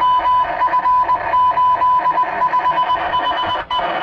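A high electronic tone keyed on and off in an uneven run of short and long beeps, like Morse code, over a steady hiss.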